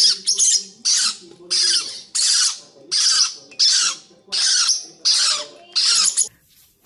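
Parrotlets squawking: a rapid, regular series of harsh, scratchy calls, about three every two seconds, that breaks off suddenly about six seconds in.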